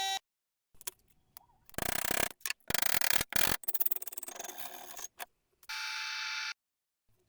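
Short bursts of hand work on metal: clicks, scraping and rubbing, with a brief steady whine about six seconds in.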